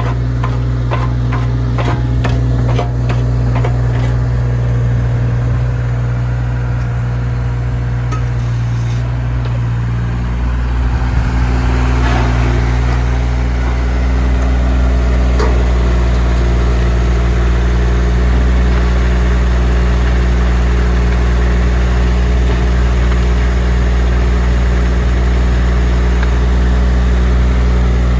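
JCB 8014 mini excavator's diesel engine running steadily, with light clicks over the first few seconds. About ten seconds in its note shifts and it runs a little louder from then on.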